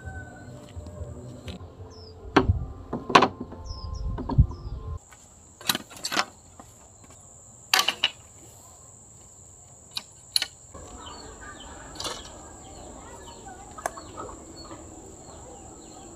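Scattered sharp knocks and chops of hand work on bamboo, about a dozen strikes a second or more apart, with birds chirping and a steady high insect whine behind them.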